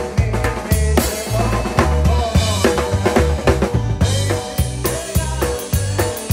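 Live band music with a drum kit up close: snare and bass drum strokes keep a steady beat over a bass line stepping between low notes, with held instrument tones above.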